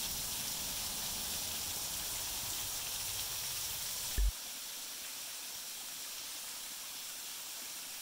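Small waterfall spilling in thin streams down stepped rock ledges: a steady hiss of falling and splashing water. A brief low thump comes about four seconds in, after which the water carries less low rumble.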